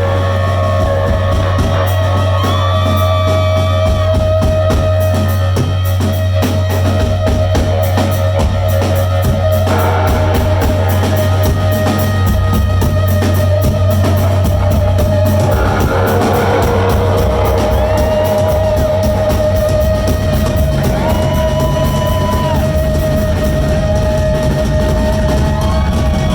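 Live rock band playing an instrumental passage, with drum kit and bass under a lead guitar that holds long notes and bends them.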